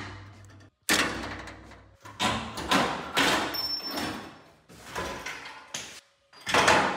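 Steel body panels (a pickup's radiator support and inner fender) clanking and scraping as they are unclamped and pulled off the cab: a run of sharp metal knocks and rattles, broken off abruptly twice.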